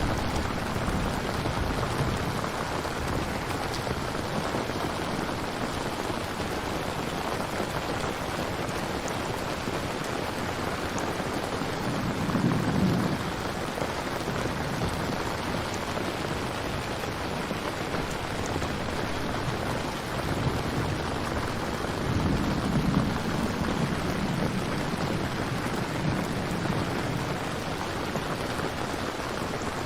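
Steady heavy rain falling, with low rumbles of thunder swelling about twelve seconds in and again around twenty-two seconds.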